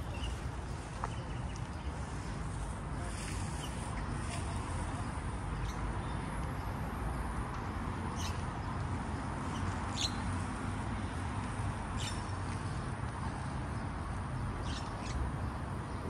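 Outdoor urban park ambience: a steady low rumble and hiss, with a few brief high chirps scattered through.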